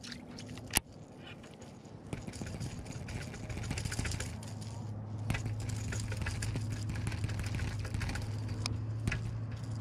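A small motor running with a steady low hum, with a sharp click just under a second in and a hiss that grows from about two seconds in.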